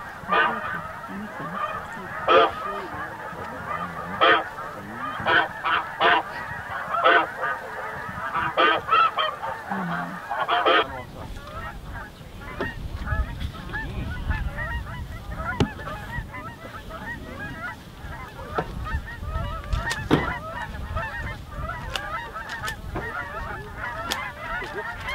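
A large flock of snow geese passing overhead, many birds calling at once in a dense chorus of short, high honks. The loudest calls come in the first half; from about halfway the chorus is softer over a low rumble.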